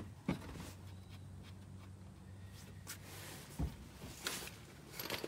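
A few scattered clicks and knocks of a ratchet and socket being handled at the transmission's 24 mm check plug, the sharpest about three and a half seconds in, over a faint low steady hum.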